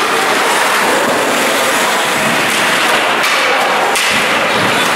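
Ice hockey rink: a steady hiss of skates on the ice and arena noise, with sharp knocks about three and four seconds in as a player is checked into the boards.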